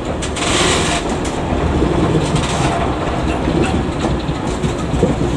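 Class 08 diesel shunter slowly hauling a rake of loaded JNA ballast wagons through the yard: a steady rumble of wagon wheels on the rails with some clickety-clack, and a short hiss about half a second in.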